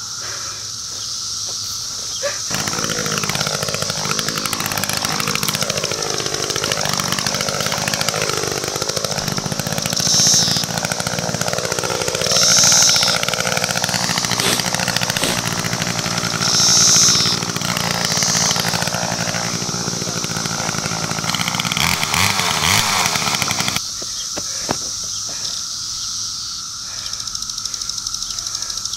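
Chainsaw engine revving hard, its pitch rising and falling over and over with several louder high-revving peaks; it starts a couple of seconds in and cuts off suddenly a few seconds before the end.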